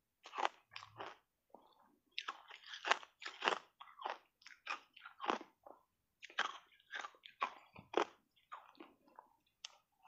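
Block ice coated in matcha powder being bitten and crunched in the mouth: a quick, irregular run of sharp crunches, about two a second, with a couple of brief pauses.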